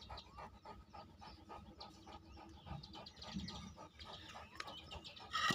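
A large dog panting in short, regular breaths, with faint bird chirps behind.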